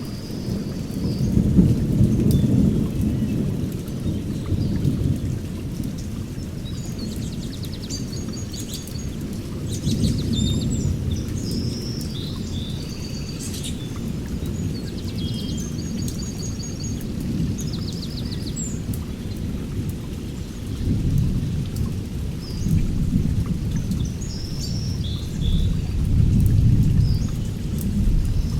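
Heavy rain with rolling thunder that swells and fades several times, the strongest rumbles near the start and in the last third. Short high chirps sound now and then over the rain.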